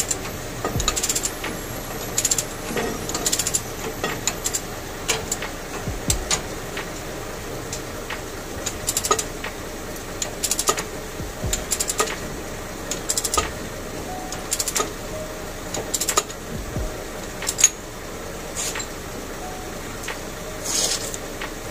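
Hand ratchet wrench clicking in short, irregular runs as a bolt on a truck's axle and suspension is turned, with scattered metal clinks of the tool.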